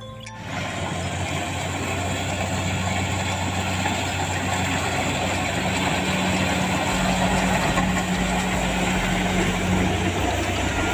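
Kubota rice combine harvester running steadily as it cuts and threshes standing rice: a constant engine hum under a broad mechanical din.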